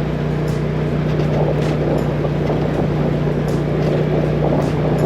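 Side-by-side UTV engine running at a steady cruising speed along a dirt trail, a constant drone with wind noise over it.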